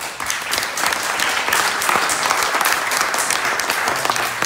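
Audience applauding: a roomful of people clapping, starting suddenly and holding steady.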